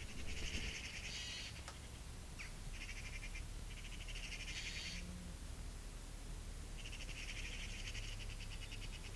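Eurasian magpies chattering: bursts of harsh, rapid rattling calls, each a second or two long, four times over.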